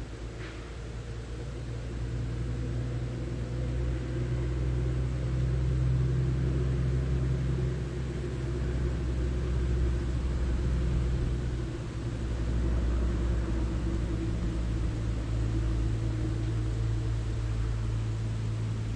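A motorboat engine running nearby: a steady low drone that builds over the first few seconds and then holds.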